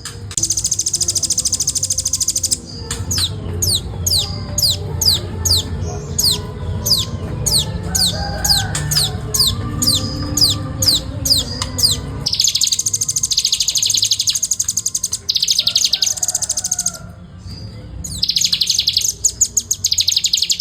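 Velvet-fronted nuthatch calling in long bouts of very fast, dense, high rattling trills. For about ten seconds in the middle the trills give way to separate notes that fall in pitch, about two a second.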